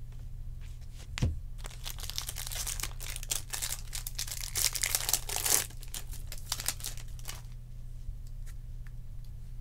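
A Topps Chrome jumbo pack's wrapper crinkling and tearing as it is ripped open by hand, loudest about halfway through and dying away near the end. It is preceded by a soft knock about a second in, over a steady low hum.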